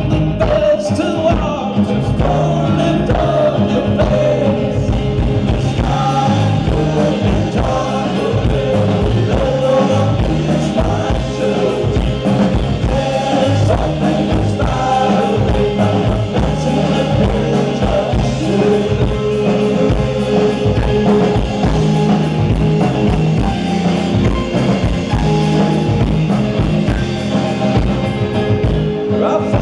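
Live alt-country band playing: a man sings over banjo, guitar, upright bass and drums, with a steady beat.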